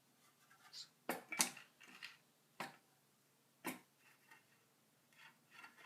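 Handling noise from a wooden water bottle mount being tried in place on a bicycle: four sharp knocks and clicks spread over a few seconds, with light rustling between them.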